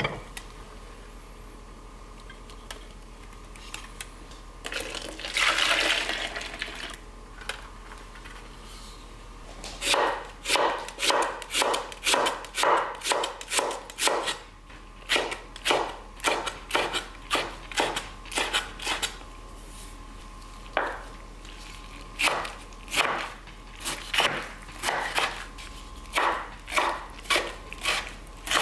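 Kitchen knife chopping on a wooden cutting board, about two to three strokes a second with short pauses, slicing green onions and then kimchi. The chopping starts about ten seconds in, after a brief rushing sound.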